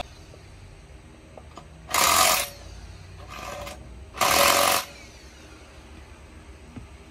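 Two short bursts from a power tool, each about half a second long and a couple of seconds apart, with a fainter burst between them.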